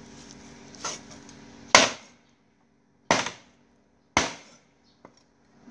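Meat cleaver chopping duck meat on a round wooden chopping block: three heavy chops about a second apart, with a lighter knock before them and a faint one after.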